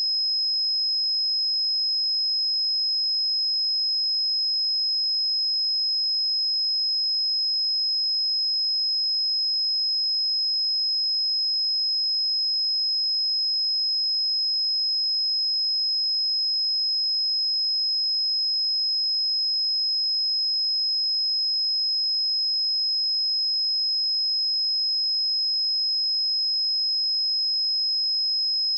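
A pure 5118 Hz sine test tone, a single high-pitched steady tone held at constant level.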